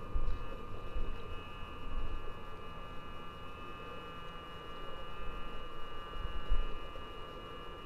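A steady, high-pitched hum made of several tones, with a few dull low thumps of movement close to the microphone.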